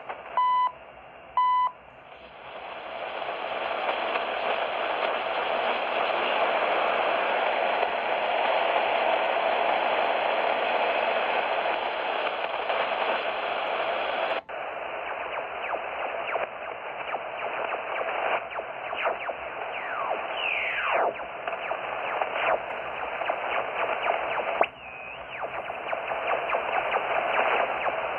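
Shortwave receiver: a few short, steady time-signal beeps from the CHU Canada station in the first two seconds, then loud band static and hiss as the receiver is tuned across the band. About halfway the hiss abruptly turns duller, and later whistles glide down in pitch as the tuning passes over signals.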